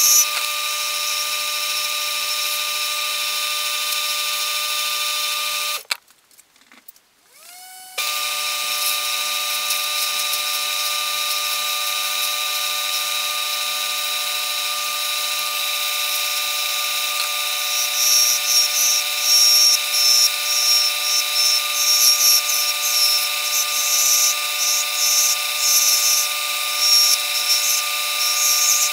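Old Delta 32-inch benchtop wood lathe running with a steady motor whine while a hand-held turning tool cuts an Acrylester acrylic pen blank, the scraping coming in uneven bursts over the second half. The lathe sound drops out for about two seconds around six seconds in, then comes back.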